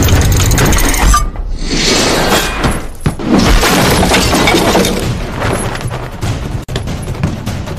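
Action-film fight sound effects: crashing and shattering of breaking objects over a dramatic music score. A fresh crash comes about two seconds in and another about three seconds in.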